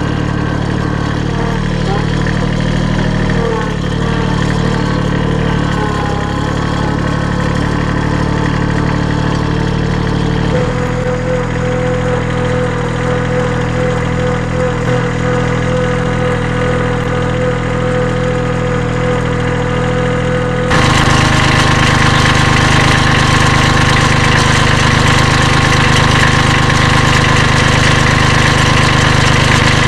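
Compact tractor engine running as the tractor drives with a front loader. A steady whine joins about a third of the way in, and about two-thirds through the engine gets louder and higher, then holds steady.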